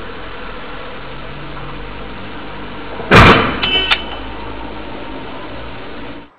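A single loud bang about three seconds in, followed by brief pitched sounds, over a steady noisy background with a low rumble.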